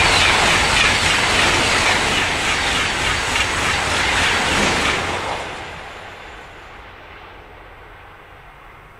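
OUIGO double-deck TGV high-speed train passing at speed: loud rushing wheel and air noise with an even rhythm of bogies going by. It fades away about five seconds in as the last cars pass.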